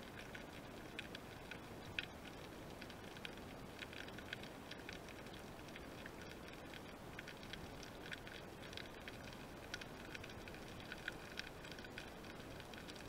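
Underwater reef ambience picked up by a submerged camera: a faint steady hiss overlaid with many irregular sharp clicks that make a continuous crackle.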